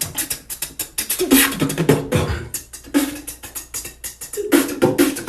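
Beatboxing: a fast run of mouth-made kick, snare and hi-hat sounds with short vocal tones, a quick, busy rhythm.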